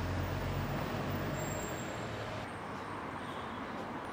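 Road traffic noise with the low, steady hum of a vehicle engine, which fades a little over halfway through.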